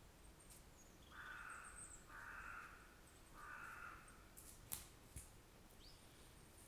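Three harsh, caw-like bird calls in a quiet forest, each about half a second long with short gaps between them. Faint high chirps sound in the background, and a sharp snap followed by a softer click comes near the end.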